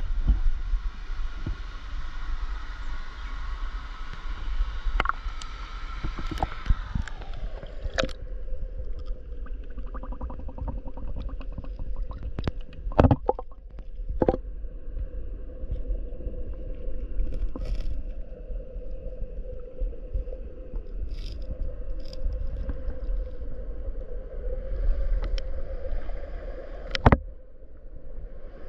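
Rushing stream water heard from a camera at the waterline. About seven seconds in, the sound turns dull and muffled as the camera goes under, leaving an underwater rumble and gurgle of the current. A few sharp knocks follow, the loudest near the end.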